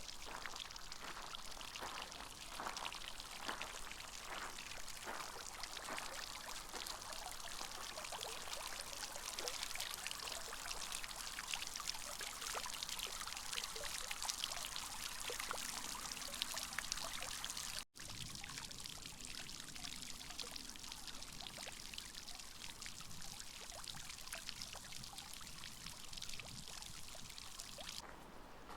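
Running water pouring and splashing steadily, a dense hiss of spray. It drops out abruptly for a moment about eighteen seconds in, then carries on a little softer.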